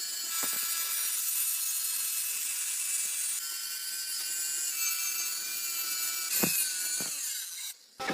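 A power tool or machine tool running steadily with a high whine and a cutting hiss, with a few short knocks.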